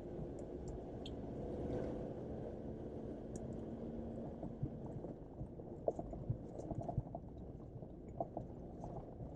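Jeep Wrangler JL crawling slowly off-road, heard from inside the cabin: a low, steady engine hum. From about halfway in come scattered knocks and clicks as the vehicle works over rough, muddy ground.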